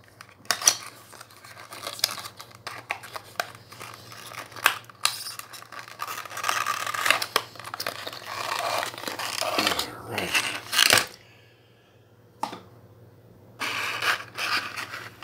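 A small cardboard die-cast model box being opened and its clear plastic blister tray slid out and handled: scraping and rustling of card and plastic with small clicks and taps. The handling pauses briefly about two-thirds of the way through, then picks up again near the end.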